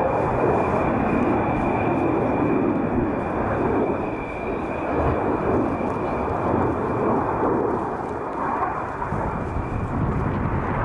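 Jet noise from a BAE Hawk T1 of the Red Arrows, its Adour turbofan making a steady rushing roar as it flies a display pass.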